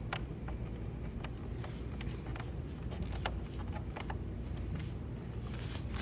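Irregular light clicks and taps of screws and plastic dashboard parts being handled and fastened, over a steady low hum.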